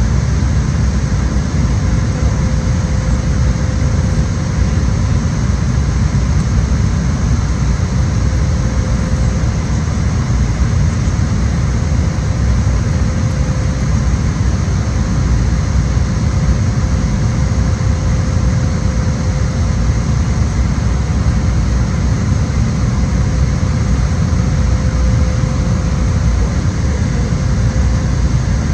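Steady, loud engine and air noise heard inside an airliner cabin, a deep even rumble with a faint steady hum over it.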